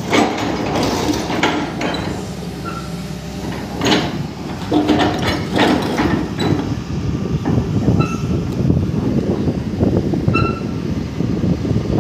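Hydraulic excavator running while its bucket knocks and scrapes against concrete pile heads to break them off. There are sharp clanks and short metallic squeals over the steady machine noise.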